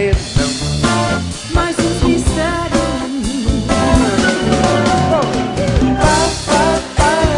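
Live pop band playing with singing: a vocal line over acoustic guitar, bass and a steady drum-kit beat.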